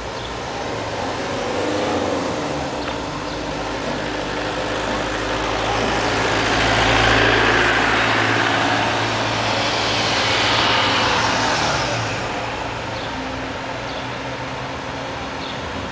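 Truck-mounted mobile crane's diesel engine running under load as it lifts a telecom mast, its revs and loudness swelling twice through the middle and easing off near the end.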